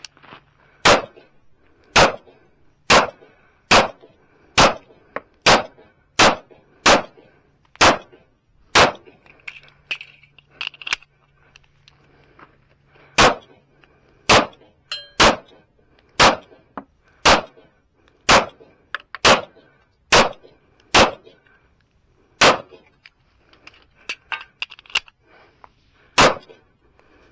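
Kimber Custom II 1911 pistol in .45 ACP fired in a string of about twenty shots, roughly one a second, with a pause of a few seconds near the middle. Metallic clangs come in among the shots.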